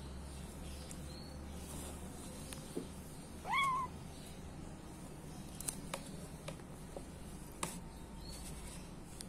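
A cat gives one short meow about three and a half seconds in, rising in pitch and then holding, while a kitten and a larger cat play-fight. A few faint taps follow.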